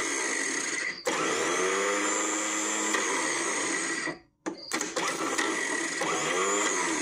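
Lister ST2 diesel's electric starter motor spinning freely in three runs, with short breaks about one and four seconds in. Each run rises in pitch as it spins up and then holds a steady whine. The starter works but the solenoid doesn't kick out to engage, so the engine is not turned over.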